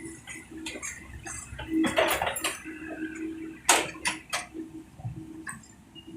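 Irregular clinks and sharp knocks, with a dense clatter about two seconds in and the loudest knock a little past halfway, over a faint broken hum.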